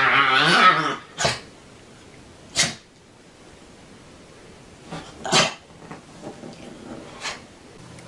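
An animal's wavering, pitched call that ends about a second in, followed by four short, sharp puffs of breath spaced out over several seconds.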